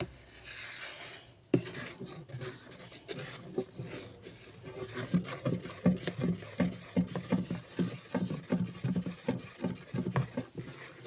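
Wooden spoon stirring a thick soapy mix of dissolved bar soap and powdered detergent in a plastic bowl, scraping and knocking against the bowl several times a second. The stirring works out lumps of powder that have not yet dissolved, and begins with a soft swishing.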